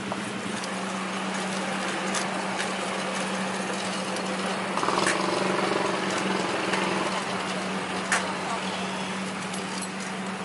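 Steady motor hum at one low pitch under busy background noise, with a few sharp clicks.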